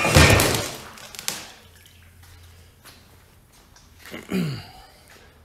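A water-filled fiberglass water-softener resin tank knocked over onto a concrete floor: a loud crash and heavy thud as it lands, with water and resin gushing and splashing out of its open neck, dying away after about a second and a half. A short sound falling in pitch comes about four seconds in.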